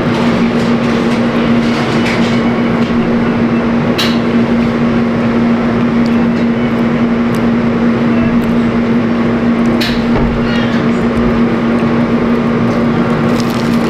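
Steady loud machine hum holding one low, even tone, with a few short crunches of a crunchy corn dog being chewed: a few seconds in, midway, and near the end.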